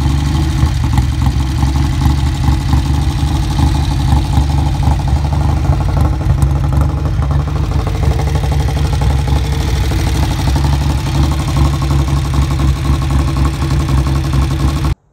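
1953 AJS Model 20 parallel-twin motorcycle engine running at a steady idle with a fast, even exhaust pulse, cut off abruptly near the end.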